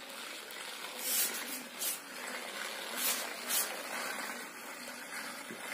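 Small toy tractor's little electric motor running as it drives across a stone tile floor, a steady whirring hiss with several short, louder rasps.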